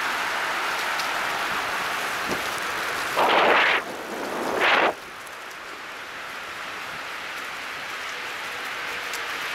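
Steady rushing of bicycle tyres rolling over a leaf-strewn path, mixed with wind on the microphone. Two brief louder rushes come a little after three and about four and a half seconds in, and it runs quieter from about five seconds on.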